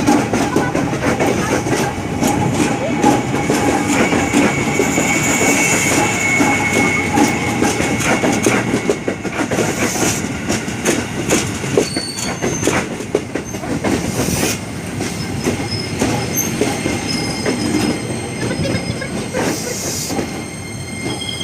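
Train rolling past: dense clatter of wheels over the rails with a thin steady squeal above it, easing slightly in loudness in the last third.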